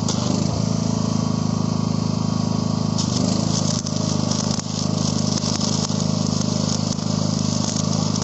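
Electric arc welding on the elongated insert of a railway crossing sleeper: the arc crackles and sputters, growing brighter about three seconds in, over a steady machine hum from the welding set.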